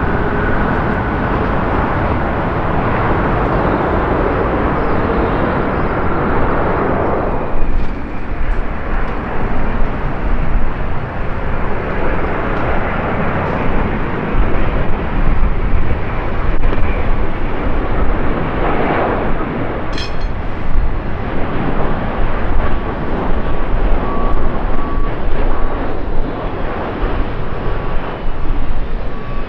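Delta Airbus A330-900's Rolls-Royce Trent 7000 jet engines at takeoff thrust, a steady roar for about the first seven seconds. Then an ANA Boeing 787-9 on final approach, its jet engines' hum with a thin steady whine coming in near the end, under gusty wind buffeting the microphone.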